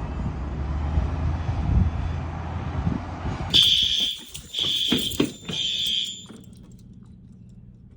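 A low rumbling noise, then about three and a half seconds in a fire alarm horn sounds a high tone in three pulses and stops: the school's system going into alarm.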